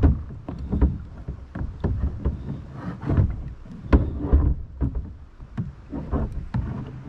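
Irregular knocks, clicks and low thumps of a chair being handled against plastic kayak hulls while it is loaded into a kayak's rear cargo area.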